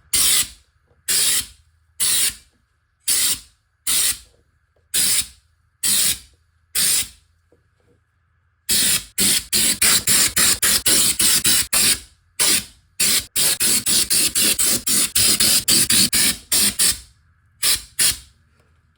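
Protective coating sprayed onto a car body in short hissing bursts, about one a second at first. After a brief pause, from about nine seconds in, the bursts come in a rapid run of several a second, with two more near the end.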